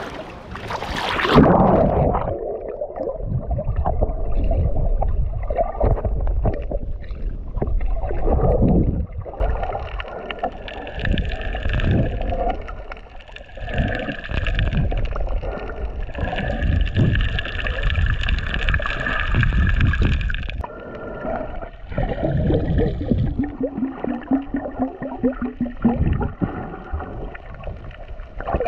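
Water heard underwater while snorkelling: a splash about a second in, then muffled sloshing and bubbling that swells and fades every couple of seconds.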